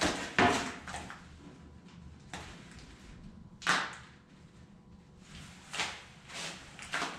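A series of short, irregular scrapes and knocks over a faint low steady hum. The loudest come just after the start and about three and a half seconds in.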